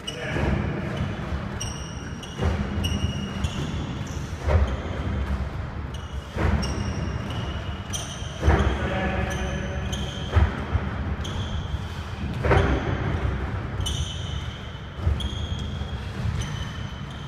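Heavy thuds on a wooden sports-hall floor about every two seconds, from a person exercising: jumping, landing and dropping to the floor in a burpee-style movement. The hall echoes, and a melody of high notes runs underneath.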